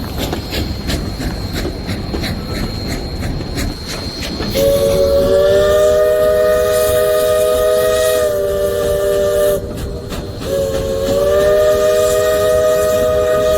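Train rolling with a rhythmic rail clatter, then the locomotive's whistle sounds a chord of several tones, held for about five seconds, and blows again about a second after it stops.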